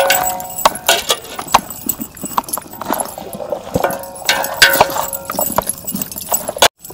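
Metal bracelets and rings clinking and knocking against a large metal cooking pot as bare hands mix raw goat meat with masala. The clicks are irregular, and the pot rings briefly after the louder knocks.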